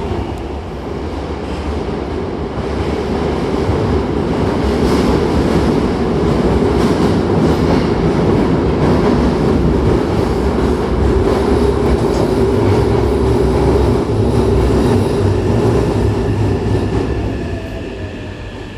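Hankyu electric train running on the rails underground: a loud, steady rumble with wheel rattle. Near the end the noise dies down and a falling whine is heard as the train slows.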